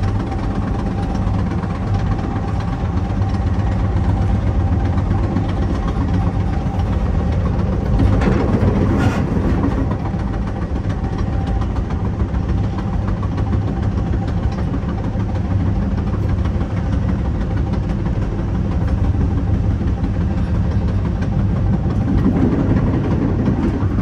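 Metra commuter train running at speed, heard from inside the car: a steady rumble of wheels on rail with a low engine drone. A brief clatter comes about eight seconds in, and the rumble grows louder near the end as the train rolls onto a girder bridge.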